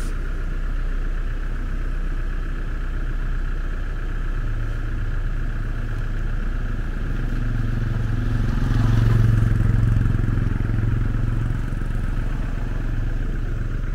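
A motorcycle rides past on a wet, slushy road. Its engine grows louder, peaks about nine seconds in and fades, over a steady engine hum that runs throughout.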